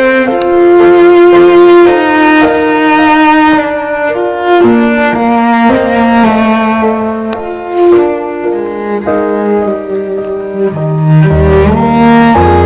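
Sad background music led by bowed strings, slow held cello and violin notes.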